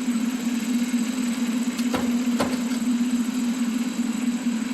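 2013 Kia Optima engine idling steadily with an even hum, with two light clicks about two seconds in.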